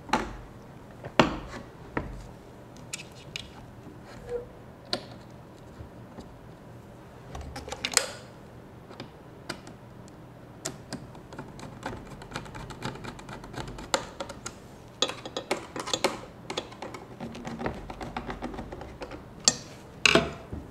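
Knocks and clicks as a plastic switch enclosure is handled against a wooden wall and its metal mounting brackets are screwed on with a hand screwdriver. The sharp taps are scattered, and they come more thickly in the second half.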